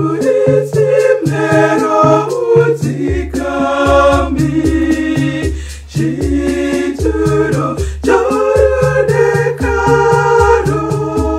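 A Shona gospel song sung in close several-part harmony, every part by the same woman's voice layered over itself, with a pulsing bass line and a steady beat underneath.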